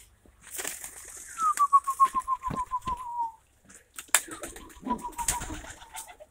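A door or gate hinge squeaking in a stuttering, falling tone as it swings, then a sharp knock and a second, fainter squeak. Pigeons are cooing in the loft.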